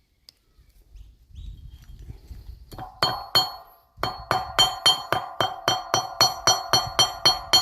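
Hammer striking a piece of annealed steel to flatten it, each blow ringing metallically. Two blows come about three seconds in, then a steady run of about three blows a second from about four seconds on.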